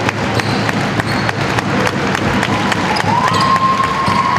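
Game sounds of an indoor basketball match: a ball thudding on the floor and repeated short knocks from play, over a noisy crowd in a large hall. About three seconds in, a steady high note comes in and is held.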